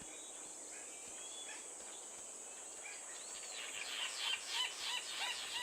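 A steady high insect drone, with a bird's chirping calls coming in about three seconds in as a quick run of several chirps a second that grows louder.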